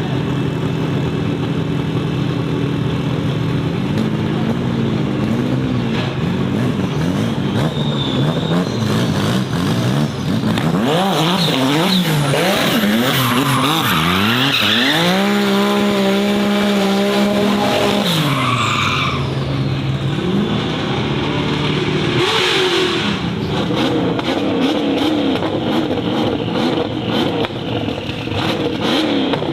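Race car engine running steadily, then blipping up and down, climbing steeply about halfway through to a high note held for a few seconds before dropping back. Tyres squeal around the loudest part.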